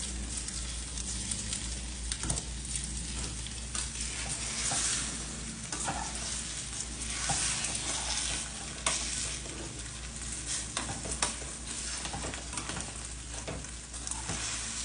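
Food sizzling as it fries in hot oil, with the occasional click or scrape of a utensil stirring it.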